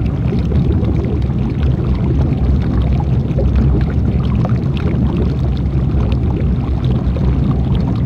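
Dudhsagar Falls pouring into its plunge pool: a loud, steady rush of falling water, heaviest in the low rumble.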